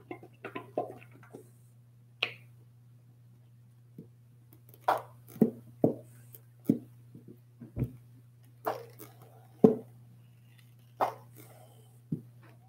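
Plastic ketchup squeeze bottle handled upside down, squeezed and knocked: about ten separate short knocks, clicks and squishes spread over several seconds, the loudest about two-thirds of the way through, while the ketchup will not come out.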